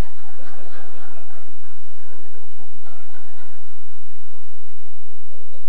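Congregation laughing together, the laughter thinning out about four seconds in.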